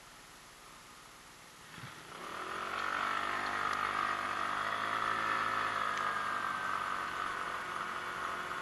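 Genuine Buddy 125 scooter's single-cylinder four-stroke engine pulling away. It is faint for the first couple of seconds, then rises in pitch and loudness as the scooter accelerates, and settles into a steady running sound at speed.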